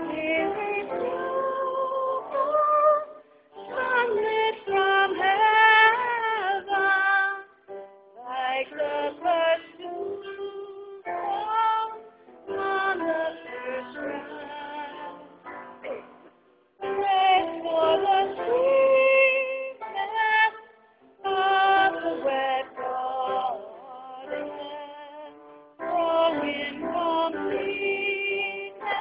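A single voice singing a slow, lullaby-like melody with no accompaniment. It sings in phrases of a few seconds with held notes and short silent breaks between them. The sound is thin, with nothing heard above the voice's middle range.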